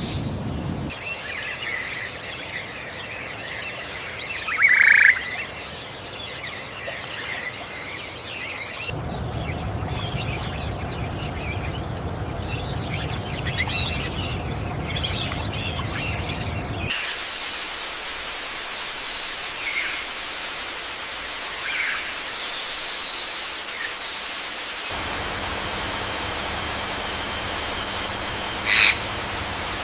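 Birds chirping and calling over a steady background hiss, the ambience changing abruptly every eight seconds or so. One louder call comes about five seconds in and another near the end.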